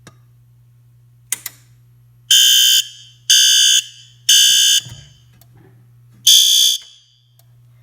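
A click, then a fire alarm horn (the System Sensor L-series horn) sounding in the temporal-3 'code 3' pattern: three half-second beeps a second apart, a pause, and a fourth beep, after which the horn is silenced. A low steady hum runs underneath.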